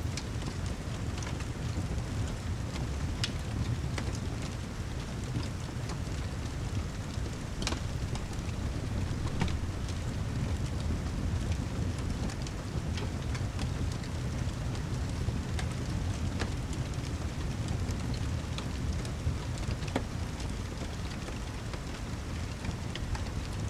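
Rain and fireplace ambience: a steady hiss of heavy rain over a low, constant rumble, with scattered sharp crackles from the fire every few seconds.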